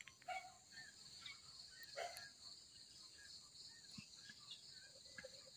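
Faint, steady high-pitched chirring of insects, with scattered short, faint bird chirps.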